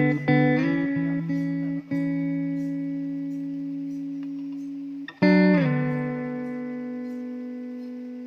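Background music of plucked guitar chords, each struck and left to ring out and slowly fade, with new chords about two seconds in and again about five seconds in.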